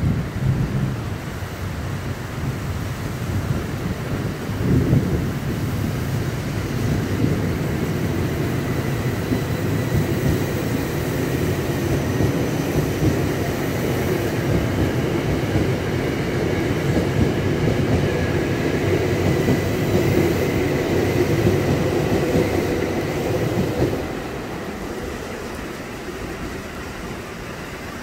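Electric commuter train pulling out alongside the platform: a steady rumble of wheels on rail, with clatter and a thin high whine over it. The sound drops away about 24 seconds in.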